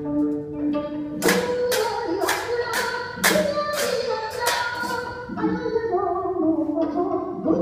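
Small hand cymbals clashed together about ten times, roughly two a second, each clash ringing briefly, over recorded music with singing; the clashes stop about five seconds in.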